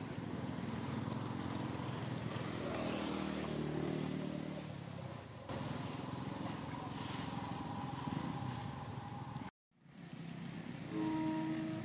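An engine running steadily, its low hum rising a little in pitch around the middle, like a motorcycle. The sound cuts out abruptly about two-thirds of the way through, then a short clear-pitched sound is heard near the end.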